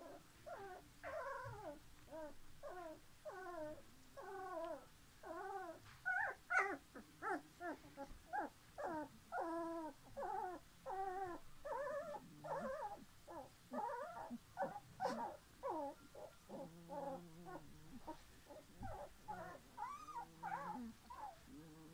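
Young puppies whimpering and squeaking: a continuous run of short, high whines, each rising and falling in pitch, about two a second.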